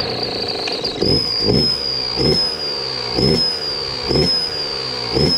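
Yamaha YZ125 two-stroke dirt bike engine firing up and being blipped about once a second, with a turbo whistle taped into the exhaust. The whistle gives a steady high whistle over the two-stroke's sound, and its pitch lifts a little with each blip.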